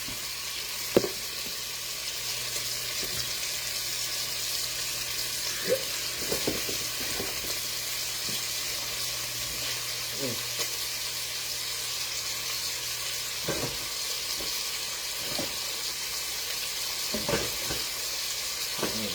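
Lamb chops frying in a hot pan, a steady sizzle, with a few short knocks now and then.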